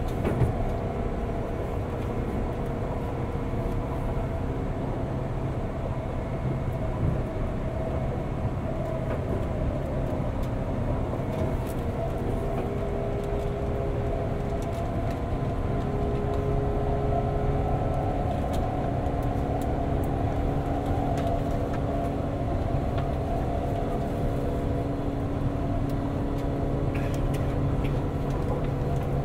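Running noise inside a 189-series electric train's motor car: the MT54 DC traction motors and gearing hum steadily under a low rumble of wheels on rail. The hum's pitches shift slightly about halfway through.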